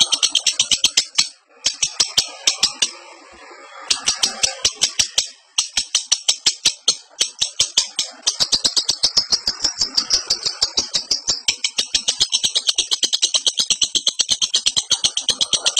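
Lovebird in breeding condition giving its long ngekek chatter: a rapid, rattling run of sharp high chips, several a second. The run breaks off briefly a few times in the first six seconds, then goes on steadily.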